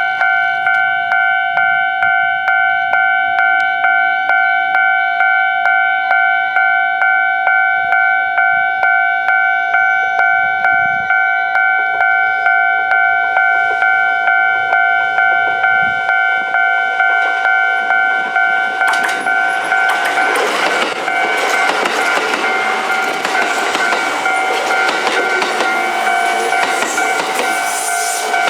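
A Japanese level-crossing alarm dings in a steady, rapid rhythm. About twenty seconds in, a six-car Kintetsu 15200 series train rushes over the crossing with rattling wheels and rail joints, and the alarm keeps ringing underneath.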